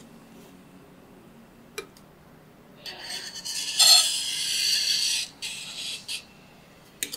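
Metal spatula spreading cream cheese frosting over a sandwich cake, a rasping scrape lasting about two seconds from around three seconds in, followed by a few shorter scrapes and light clicks.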